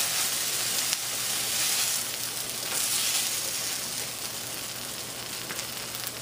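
Cheese quesadillas frying in a skillet: a steady sizzle, with one light knock about a second in.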